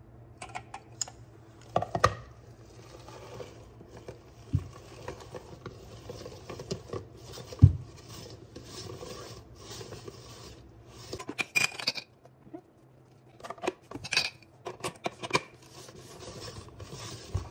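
Plastic twist-type chicken shredder being turned back and forth over a cooked chicken breast: a rasping, scraping grind of the plastic lid turning on its base, with several sharp plastic knocks and clicks along the way.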